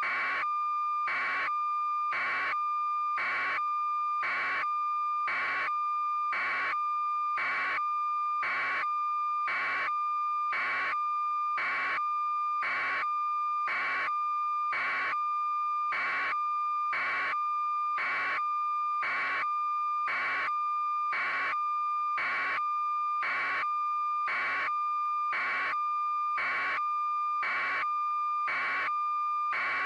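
A steady electronic tone with a regular pulse repeating about one and a half times a second, unchanging throughout.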